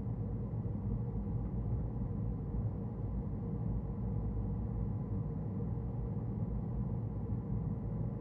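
Car driving along a road: a steady low rumble of engine and tyre noise, with no changes.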